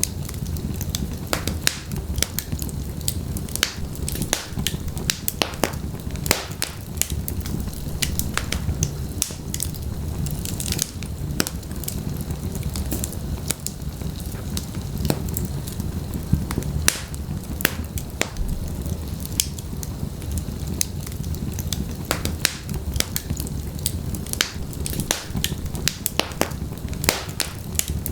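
Wood fire burning in a fireplace, with a low steady rumble of flames and frequent sharp, irregular crackles and pops.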